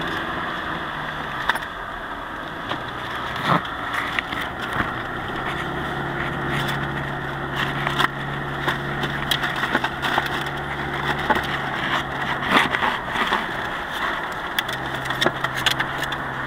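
A dog crunching in the car, many short, sharp crackles scattered throughout, which the owner takes for it rooting around for food. Under it, the steady hum of the car's engine and road noise inside the cabin.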